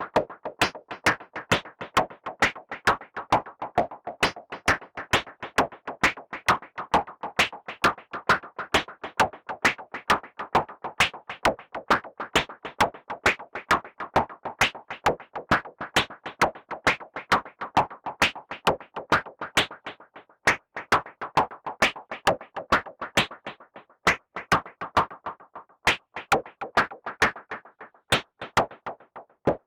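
Modular synthesizer playing a sequenced percussion pattern: short bursts of filtered noise, shaped by envelopes and a Wasp filter, strike like a drum about two to three times a second. The pattern breaks into brief gaps in its last third.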